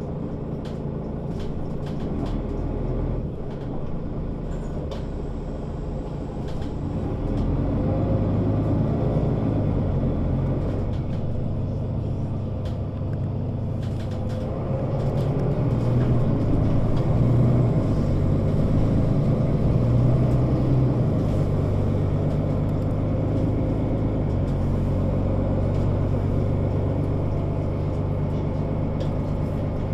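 Mercedes-Benz Citaro O 530 city bus diesel engine running under way, pulling harder about a quarter of the way in and again about halfway through, with light rattles and ticks over it.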